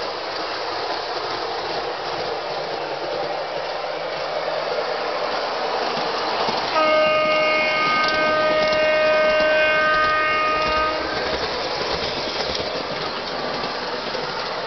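MTH RailKing Burlington Zephyr O-gauge model train rolling along the track with a steady rumble of wheels and motor. About halfway through, its ProtoSound horn sounds a chord of several notes for about four seconds, with a short break near the start.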